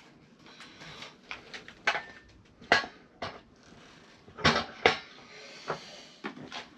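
Irregular clicks, clatter and knocks of hand tools and metal parts being handled during motorcycle work, with one sharp knock near the middle and two more in quick succession a little later.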